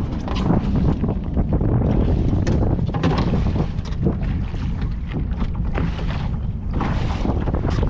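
Wind buffeting the microphone aboard a sailboat under way: a steady low rumble with gusts of rushing noise, the strongest near the end.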